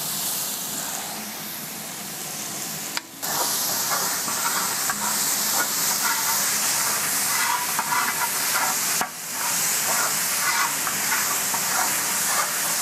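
Ginger-garlic paste sizzling in hot oil with onions and tomatoes in a large wide urali, stirred with a metal ladle that scrapes across the pan. The sizzle breaks off briefly twice, about three and nine seconds in.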